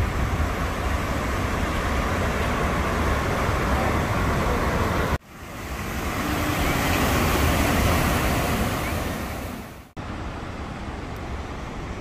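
Steady rush of the Kicking Horse River pouring through rapids among rock slabs, with a heavy low rumble. The sound is broken by two abrupt cuts, about five and ten seconds in, with the middle stretch fading in and out.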